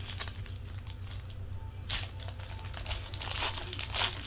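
Foil trading card pack wrapper crinkling and tearing as it is opened by hand, in irregular rustles, the loudest about two seconds in and near the end.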